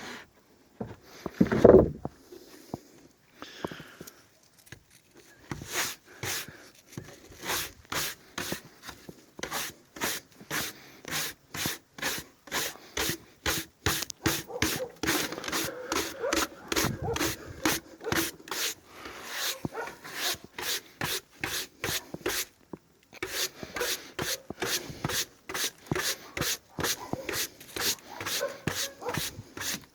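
Brush scrubbing sawdust off a wooden board in fast, even back-and-forth strokes, about two to three a second, with a short pause partway through. A brief, louder sound comes about two seconds in, before the brushing starts.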